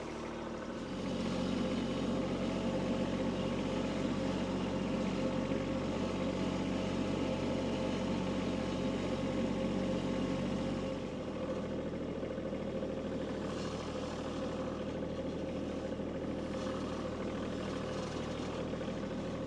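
Kubota B2301 compact tractor's three-cylinder diesel engine running steadily; it comes up in speed about a second in and eases back down about eleven seconds in.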